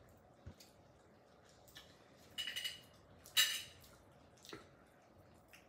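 Eating at a dining table: wet mouth noises and small clicks of food being handled and chewed, with two louder rustling bursts about two and a half and three and a half seconds in.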